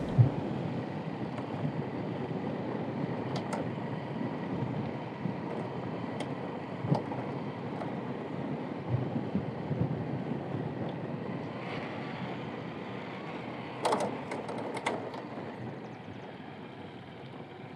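Slow tow over a dirt track: steady running noise from the towing motorcycle ahead and the electric scooter's tyres on gravel, with a few sharp clicks near the end. It grows a little quieter in the last seconds as the pair slows for the turn.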